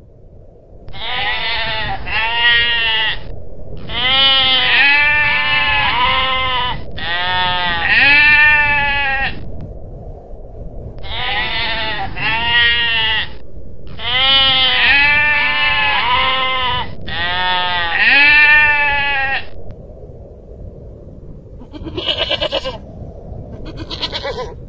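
Long-tailed goral calling: repeated pitched calls, each arching up and down in pitch, in bursts of two to three seconds, two or three calls to a burst. Two runs of three bursts are followed by two short single calls near the end.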